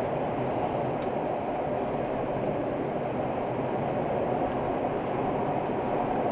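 Steady road and tyre noise with engine hum inside a car cruising at expressway speed, heard from within the cabin.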